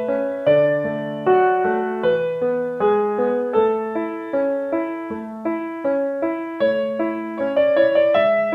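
Background piano music: a gentle melody of evenly paced notes, each struck and fading, over a lower accompanying line.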